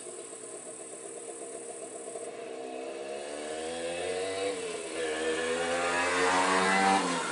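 A motor vehicle's engine accelerating, getting louder as its pitch climbs over several seconds. Near the end the pitch drops abruptly, then the engine carries on at a lower pitch.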